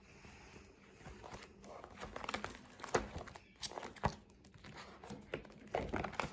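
Pages and plastic sheet protectors in a ring binder being flipped over by hand, rustling and crinkling, with a few sharp taps as the sheets fall against the rings and dividers.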